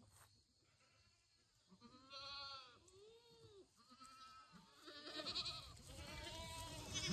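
Herd of meat goats bleating: several separate calls one after another, starting about two seconds in and getting louder toward the end.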